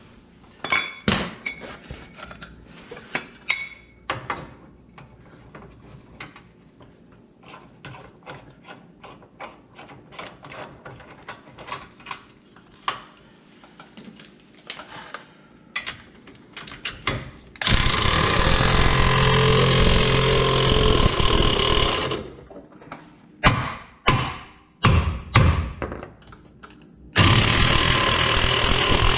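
Metal tool clinks and knocks as a C-frame ball joint press is set up over a new ball joint. An air impact wrench then runs on the press screw, once for about four seconds and again near the end, pressing the ball joint into the control arm.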